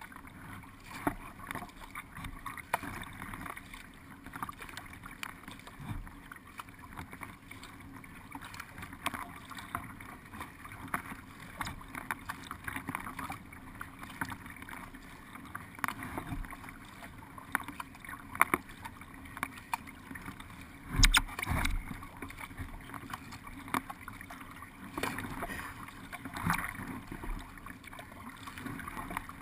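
Water splashing and lapping against the hull of a small paddled racing boat as it moves along, with irregular small knocks and ticks. One louder, deeper thump comes about two-thirds of the way through.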